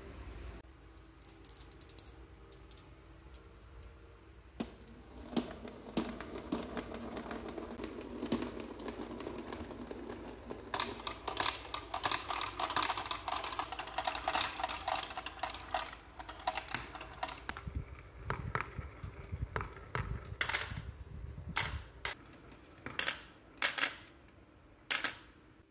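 Glass marbles running down marble-run tracks. A rolling rumble gives way to a long stretch of dense clicking and clattering. Near the end come a few separate sharp clicks as single marbles drop off a ramp into a plastic toy dump truck's bed.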